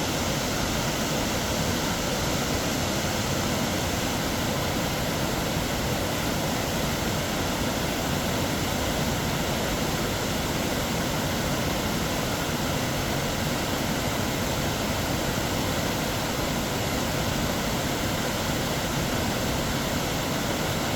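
The roar of Snoqualmie Falls, a 268-foot waterfall plunging over basalt: a steady, unchanging rush of falling water.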